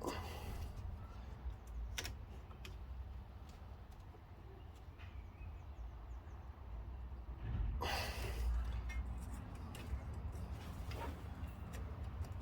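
Faint handling noises as hands work at the grimy, stuck plug of a brake pad wear sensor connector: a few light clicks and a louder scuffing rustle about eight seconds in, over a low steady rumble.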